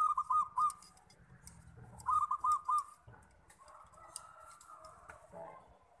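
Zebra dove (perkutut) cooing: two short phrases of quick, rolling notes about two seconds apart, then a quieter drawn-out note. Faint clicks of a spoon stirring in a plastic water cup sound in the first half.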